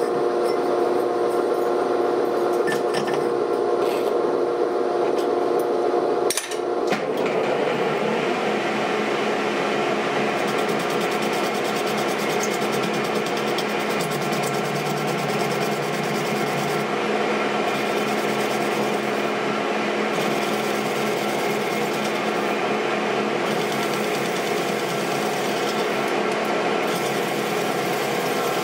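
Metal lathe running, with a brief break about six seconds in, then the cutting tool turning a steel pipe held in the chuck: a steady machining noise with a scraping, rasping edge.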